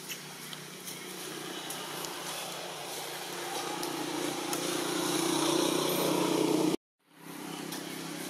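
A motor vehicle's engine running nearby, a steady hum that grows louder over several seconds. The sound cuts out completely for a moment about seven seconds in, then comes back.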